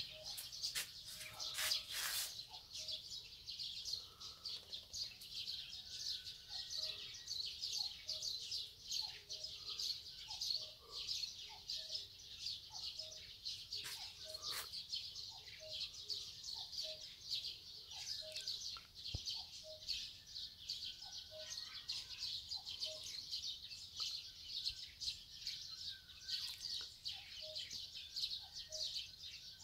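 Dawn chorus of many small birds chirping and singing together at once, with a short, lower note repeating about once a second. A few sharp clicks come in the first two seconds.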